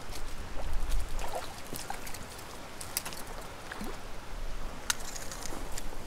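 A small hooked brook trout thrashing at the surface of a still pond, making scattered light splashes and ticks.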